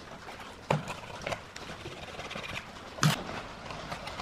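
Handling noise from hands working at the centre of a loudspeaker's paper cone: a few separate soft knocks, the loudest a little under a second in and about three seconds in, over a faint steady hiss.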